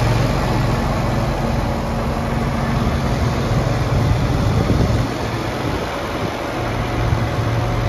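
A 2009 John Deere 8320R tractor's six-cylinder diesel engine idling steadily, dipping slightly about five seconds in.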